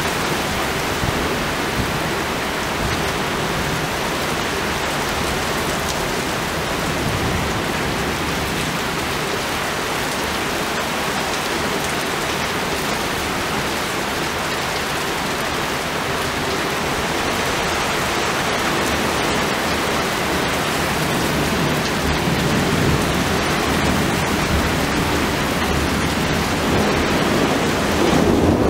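Heavy rain pouring steadily in a thunderstorm, with a low rumble of thunder swelling in the last few seconds.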